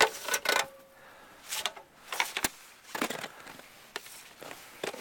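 Snow scraper pushing heavy, wet snow across a roof: a string of short scraping, crunching strokes at irregular intervals.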